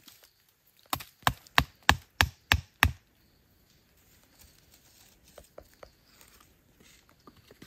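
Machete striking a bamboo stake: seven sharp wooden knocks in quick succession, about three a second, followed by faint rustling in the leaf litter.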